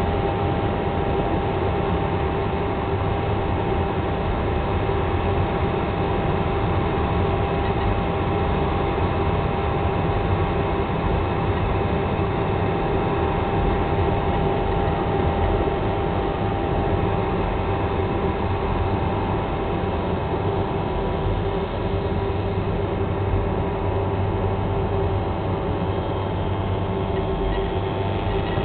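Steady rush of airflow heard from inside the canopy of a one-third-scale Ka 6E radio-controlled glider in flight, with a few steady whistle-like tones over the noise.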